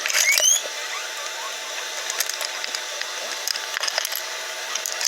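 Scattered light clicks and rattles of small metal screwdriver bits being handled in their container. A few short rising squeaks come in the first half second.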